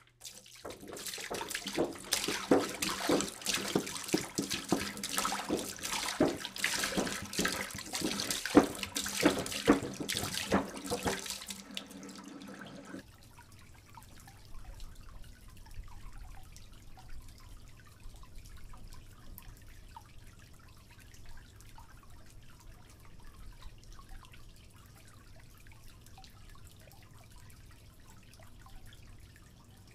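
Water splashing loudly onto a dog and the wet concrete floor for about thirteen seconds, then stopping abruptly and giving way to a much quieter trickle and drip as a garden hose runs water over the dog's back.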